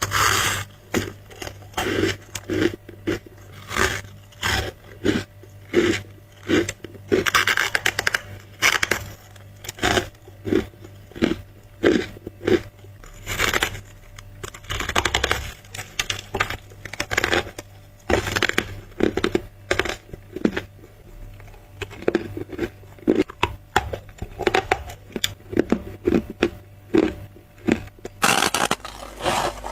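Close-up crunching of frosty white freezer ice being bitten and chewed, squeaky ice crunching between the teeth in a steady rhythm of about two chews a second, with a few longer, louder bites breaking off fresh pieces.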